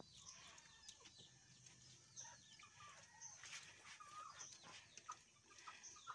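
Faint clucking and chirping of chickens, with a few light clicks.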